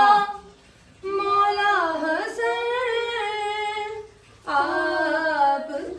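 A woman singing an unaccompanied Urdu devotional song (a manqabat), in long held notes that waver in pitch, with two short breaks for breath, about half a second and about four seconds in.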